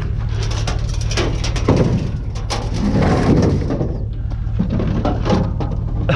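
Repeated knocks, clatter and scraping of a heavy scrap item being shifted and loaded, over a steady low engine hum.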